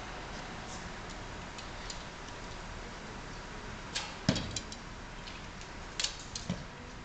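Archery bows and arrows being handled and shot, giving a handful of sharp knocks and clicks over a steady hiss. The loudest knock, with a dull thump, comes about four seconds in, and a few more clicks follow about two seconds later.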